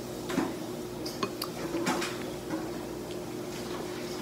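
A metal fork clinking against dishes a few times, short light clicks over the first two seconds, over a steady low hum.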